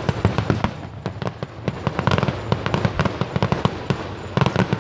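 Fireworks display: a dense, continuous barrage of bangs and crackles, many reports a second, with louder flurries about two seconds in and again near the end.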